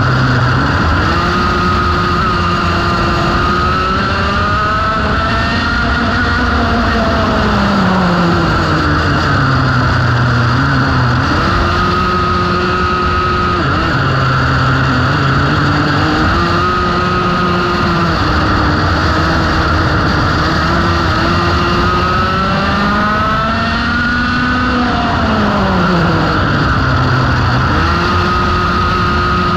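Vintage sidewinder go-kart engine, heard from onboard the kart at racing speed. The revs climb and hold high along the straights, then drop for each corner before climbing again, several times over.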